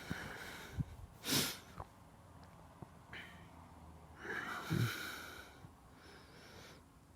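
Sneezes: a sharp, loud sneeze about a second and a half in, then a longer sneeze past the middle, with short breathy sounds between.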